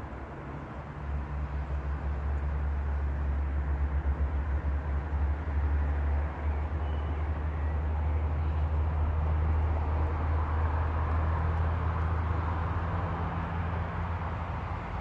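Steady low rumble of traffic on the busy dual carriageway around the roundabout.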